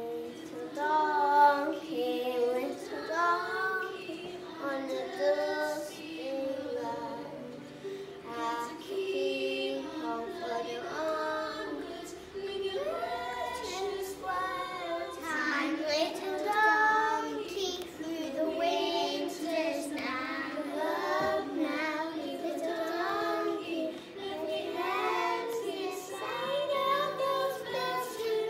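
Young children singing a Christmas song along to recorded backing music.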